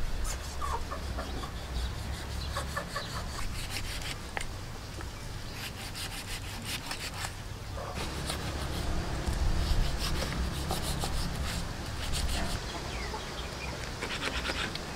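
Large kitchen knife cutting and scraping meat from a cow head, in bursts of quick rasping strokes.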